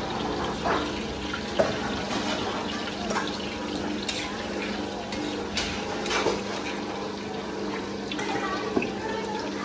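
Oil sizzling in several woks of bánh xèo (Vietnamese crispy pancakes) deep-frying in plenty of oil over gas burners. Metal ladles and spatulas clink against the woks a few times, over a steady low hum.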